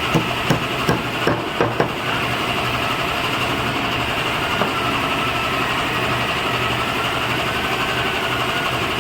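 Woodworking machine running steadily, with several sharp knocks in the first two seconds.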